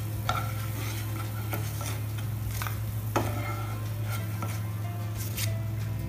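Hot oil sizzling in a nonstick pan as fried arvi-leaf and urad dal fritters are lifted out with a wooden spatula, which scrapes and knocks against the pan several times. A steady low hum runs underneath.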